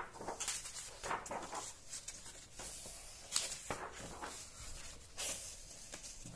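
Pages of a glossy magazine being turned and handled: a series of short papery swishes and rustles.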